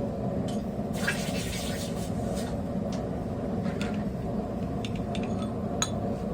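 Light, scattered clinks of steel on steel as a tong jaw is handled in an anvil hardy jig, over a steady low hum.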